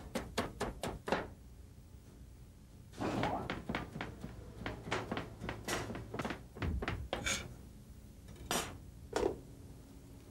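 Chef's knife chopping bell pepper on a cutting board: a quick run of about eight strokes, then after a pause a longer run of chopping lasting several seconds, and two separate heavier knocks near the end.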